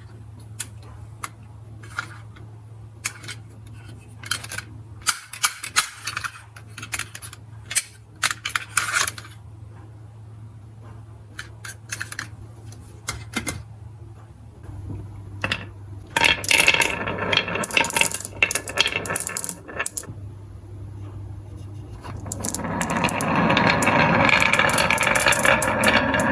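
Marbles clicking and rolling through a marble run. At first there are scattered sharp clicks, then a dense clatter in the middle, and near the end a swelling rattling rush of many marbles rolling together. A faint steady low hum runs underneath.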